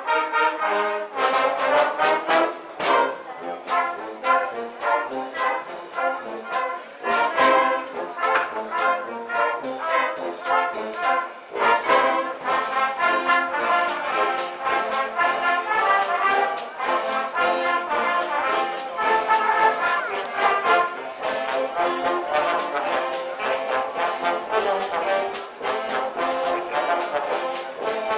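A concert wind band playing, with trumpets and trombones to the fore over clarinets and saxophones. Drum kit and percussion strike a regular beat throughout.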